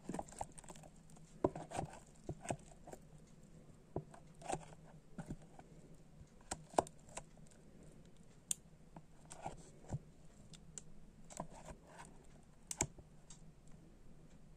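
Silicone spatula and a plastic mixing bowl clicking and scraping against each other as thick cooked milk cream is poured and pushed out onto a biscuit base: scattered soft taps and scrapes at irregular intervals, over a faint steady hum.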